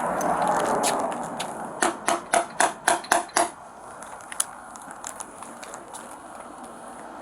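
Knocking: a fast run of seven hard raps, about four a second, followed by a few fainter taps.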